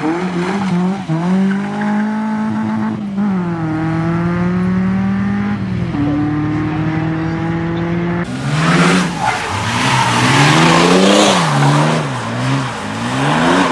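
A car engine revving hard under acceleration, its note stepping down at gear changes. About eight seconds in it cuts to a car drifting on a wet road: the engine revs swing rapidly up and down over a loud hiss of spinning tyres and spray.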